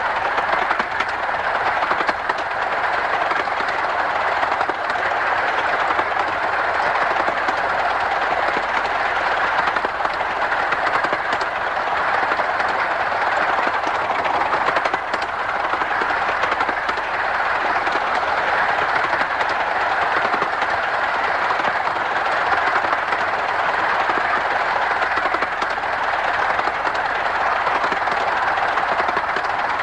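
15-inch gauge steam locomotive No.5, Hercules, of the Romney, Hythe & Dymchurch Railway running steadily along the line. Its exhaust and wheels on the rails blend into an even, continuous rush with no clear beat.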